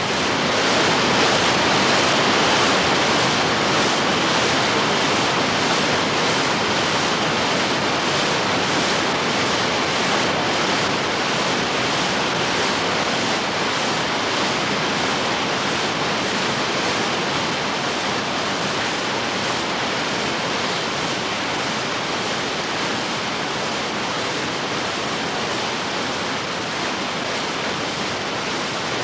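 Sound-effect recording of steady rushing water: a dense, even hiss that starts abruptly and eases off a little in level.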